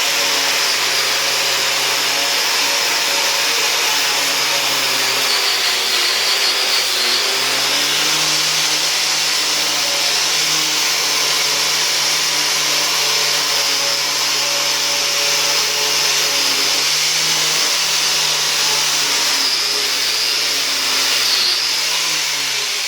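Power tool spinning a fine wire wheel brush against an old blacksmith's leg vise, scrubbing off rust and grime as a test clean. A steady motor whine under a harsh scratching hiss, the motor's pitch sagging briefly a few times as the brush is pressed in, then winding down near the end.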